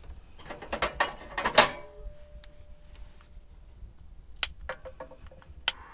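Small wood stove's metal door and latch being worked open: scraping and rattling, then a clank about a second and a half in that rings on briefly. Two sharp clicks follow later as the stove is loaded with fire starters.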